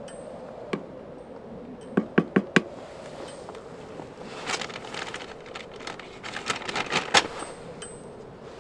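Small camp-kitchen items handled on a table: a single click, then four sharp clicks about two seconds in, followed by a few seconds of light clinking and rattling.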